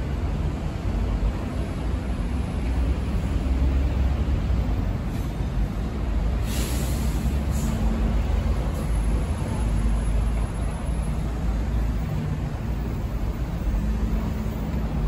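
Heavy city road traffic: buses and cars passing close by with a steady low engine rumble, and a short hiss about six and a half seconds in.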